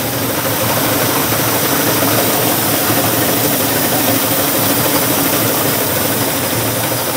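Engine of a farm machine running steadily at a constant speed.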